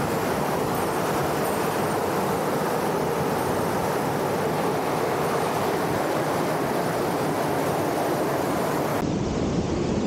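Steady rush of a small waterfall and white-water cascade pouring into a mountain-stream pool.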